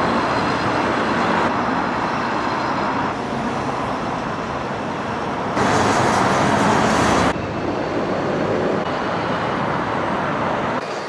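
Road traffic noise: a steady rush of passing cars and buses that changes abruptly in level several times. It is louder and hissier for a couple of seconds in the middle.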